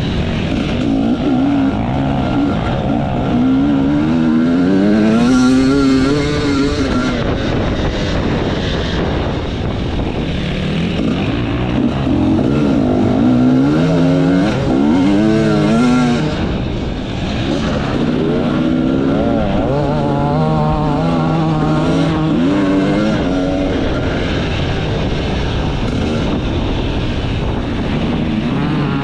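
Enduro motorcycle engine being ridden hard, its pitch rising and falling again and again as the throttle is opened and shut through the gears.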